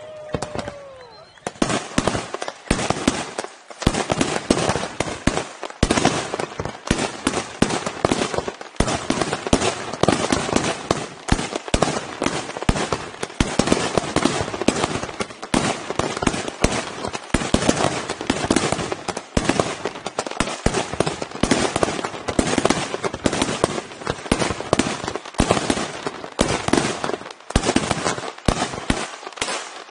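Fireworks display in full barrage: rapid, overlapping cracks and bangs, many a second, with hardly a break. The barrage starts about a second and a half in.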